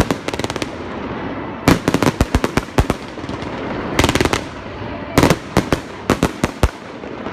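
Aerial fireworks bursting in rapid volleys of sharp bangs, four clusters with brief lulls between them.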